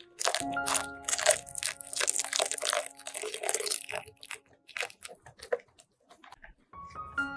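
Whisk beating egg yolks in a glass bowl, its wires clicking and scraping quickly against the glass as liquid is poured in; the strokes thin out after about four to five seconds.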